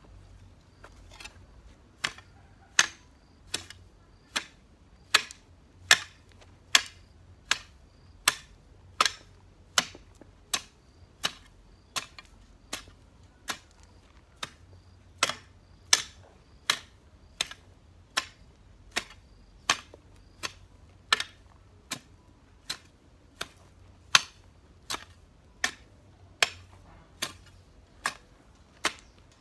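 Garden hoe with a wooden handle chopping into the ground, a sharp strike about four times every three seconds in a steady rhythm, starting about a second in.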